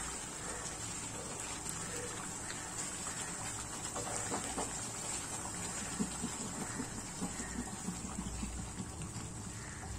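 Chicken gravy simmering and sizzling in a non-stick pan while a wooden spatula stirs it, a patter of small bubbling crackles that grows denser about six seconds in.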